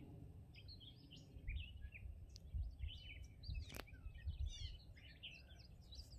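Faint songbirds chirping and singing, many short high calls overlapping throughout, over a low rumble. A single sharp click a little before four seconds in.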